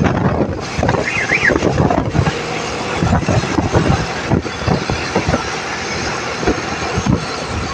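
Road traffic at speed with gusty wind noise on the microphone. A brief warbling tone sounds about a second in.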